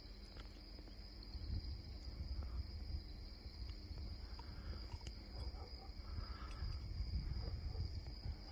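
Crickets trilling steadily and faintly, one high even tone, over a low, uneven rumble.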